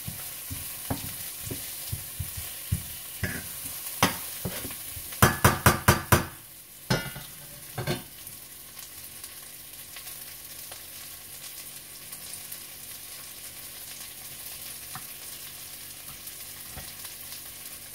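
Onions and ginger frying in oil in a stainless steel pan, with a metal utensil clinking against the pan as it is stirred. About five seconds in comes a quick run of five ringing metal taps, after which only a steady, quieter sizzle remains.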